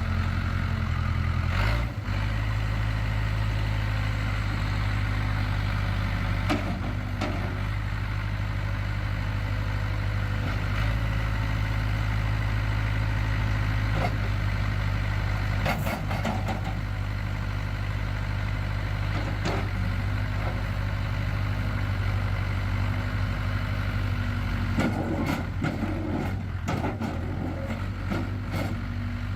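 Case 580K backhoe's four-cylinder diesel engine running steadily, with a brief dip about two seconds in and scattered knocks, more of them near the end.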